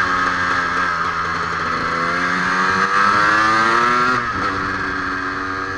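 KTM EXC 300's single-cylinder two-stroke engine, heard from on the bike while riding. Its note dips, then climbs steadily for about two seconds as the bike accelerates. About four seconds in the pitch drops suddenly and runs on lower.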